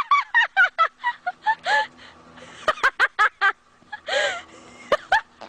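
A bird calling in quick runs of short, rising-and-falling notes, with pauses between the runs and one harsher call a little after four seconds in.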